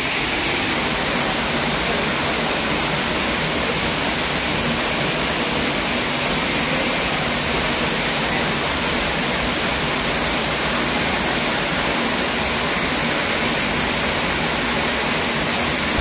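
Waterfall rushing steadily, heard close up, with the water running low over the falls.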